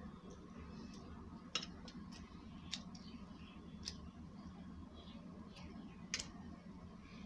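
Steel fork clinking against a stainless steel plate: four sharp, short clinks over about five seconds, above a faint steady low hum.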